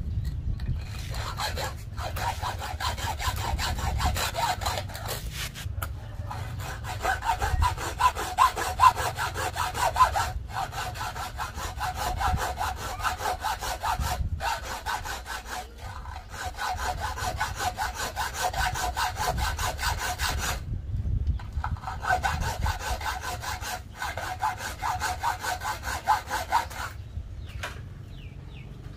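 Hacksaw cutting through a round, rusty metal part in steady back-and-forth strokes, with a few short pauses between runs of strokes.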